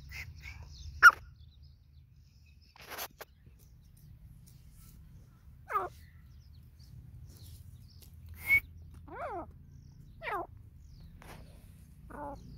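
Grey francolin giving short, soft calls: four quick notes that slide downward in pitch, spaced a second or two apart in the second half. Before them come a few sharp chirp-like sounds, the loudest about a second in.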